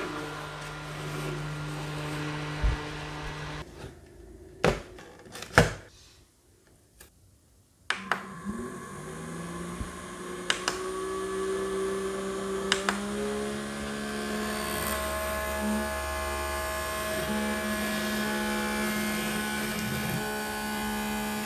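Small battery-powered mini desk fans running with a steady whirring hum of several tones, with sharp plastic clicks of the fans being handled. About six seconds in the sound drops almost to silence, then near eight seconds a fan motor spins up with a brief rising pitch and more hum tones join a few seconds later.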